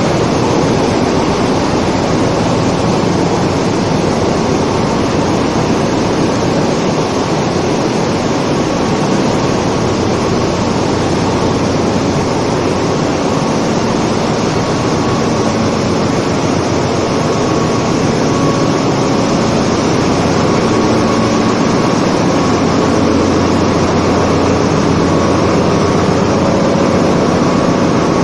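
Loud, steady din of running machinery in a tanker's engine room, with a few faint steady hums and whines.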